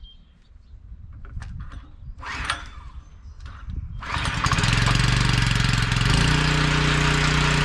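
Pressure washer's small gasoline engine pull-started on a little choke, catching about four seconds in and then running steadily, its note shifting slightly about two seconds later.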